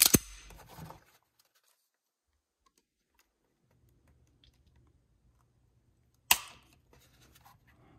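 Unloaded Sig P365 pistol being dry-fired on a trigger pull gauge, fitted with an aftermarket flat trigger and lighter Mcarbo springs. There is a sharp metallic click at the start as the pistol is handled and reset. Then it is nearly silent while the gauge slowly draws the trigger, until one crisp click about six seconds in as the trigger breaks and the striker falls.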